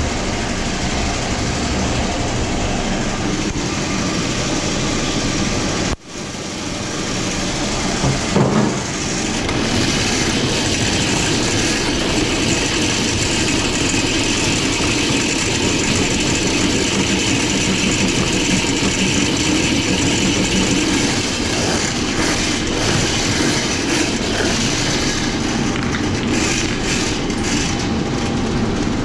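Electric drum drain-cleaning machine running, its spinning steel cable rattling and clattering as it is fed into a floor drain plugged with grease. For the first six seconds, before a sudden cut, water runs from a hose into a sink.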